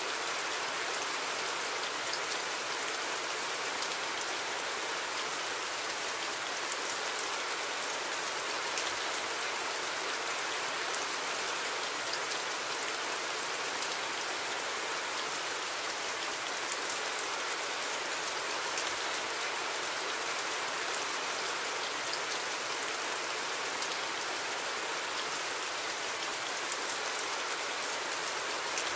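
Steady rain falling: an even hiss with faint scattered drop ticks, unchanging in level.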